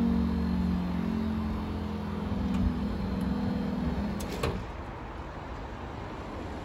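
Vehicle engine running with a steady low hum. It stops abruptly with a knock about four and a half seconds in, leaving an even rushing background noise.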